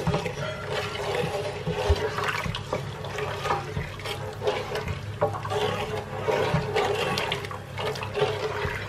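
Syrup boiling hard in an aluminium pot, a continuous bubbling with many small irregular pops, while it is stirred with a wooden spoon.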